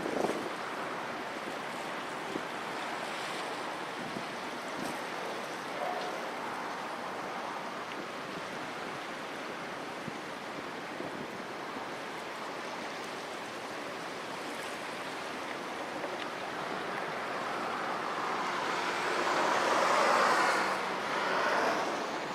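Steady rushing wash of harbour waves and wind. It swells louder for a few seconds near the end, then eases off.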